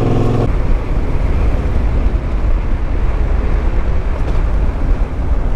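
Yamaha Ténéré 700's parallel-twin engine running steadily; about half a second in its note drops away. What remains is a loud, low rumble of wind buffeting the microphone as the bike rolls along the dirt track.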